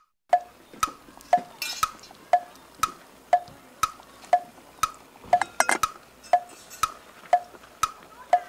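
Clock-style tick-tock sound effect: sharp ticks about two a second, alternating a lower and a higher tick, marking time passing while the food cooks. A short metallic clatter comes about five seconds in.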